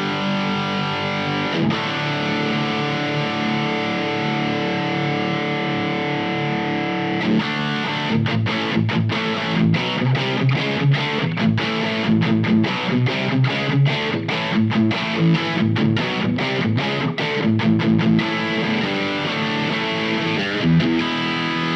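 Electric guitar with P90 pickups played through the LPD Pedals Eighty7 Marshall-style drive pedal with its gain cranked, giving a heavily distorted tone. Held, ringing chords for about the first seven seconds, then quick choppy staccato chords for about ten seconds, then held chords again near the end.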